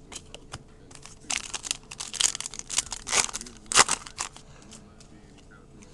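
Foil wrapper of a Donruss Elite football card pack crinkling as it is torn open and peeled off the cards: a run of sharp crackles from about a second in until about four seconds in.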